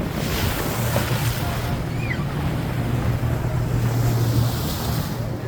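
A boat's engine running with a steady low hum, under water rushing and splashing against the hull and gusts of wind on the microphone.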